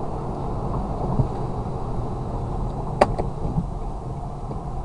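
Steady road and engine noise of a car driving on a highway, heard from inside the cabin. A sharp knock comes about three seconds in, with a fainter one shortly after.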